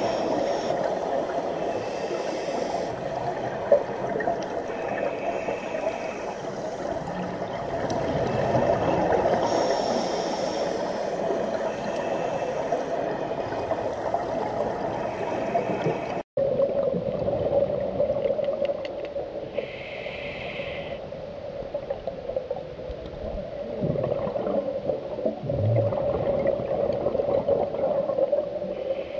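Underwater sound heard through a compact camera's housing on a scuba dive: a steady muffled rushing, with hissing bursts every few seconds that fit divers exhaling through their regulators. The sound breaks off for a moment about halfway through, then carries on.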